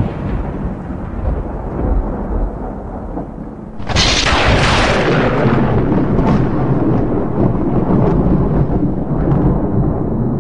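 Cinematic intro sound effects: a deep, heavy rumble with a sudden whooshing hit about four seconds in that fades away slowly.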